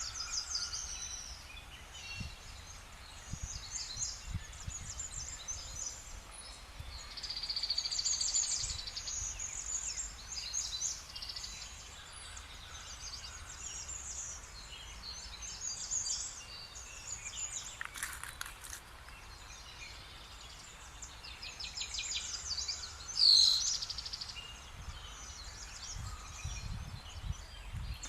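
Several small songbirds singing and chirping with quick trills, with one louder falling whistle a little after two-thirds of the way in. A low gusty rumble of wind on the microphone runs underneath.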